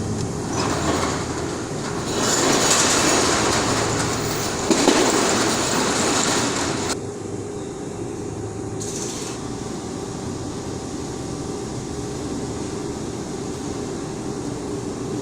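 CNC lathe machining a heavy-duty truck wheel: a loud hissing cutting noise over the machine's steady hum for about the first seven seconds, then the hum alone with one short hiss about two seconds later.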